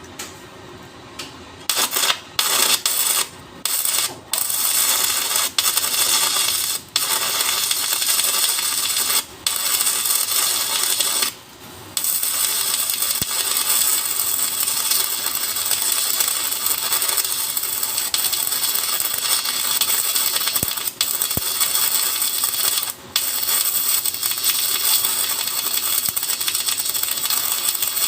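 Stick-welding arc crackling and sizzling as the electrode burns. It strikes about two seconds in, breaks off and restarts several times over the next ten seconds, then runs unbroken.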